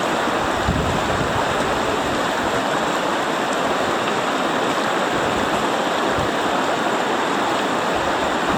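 Rushing river water through rapids, a steady, even rush with no breaks.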